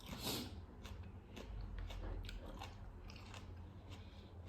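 A person biting and chewing crunchy food close to the microphone, with irregular crisp crunches.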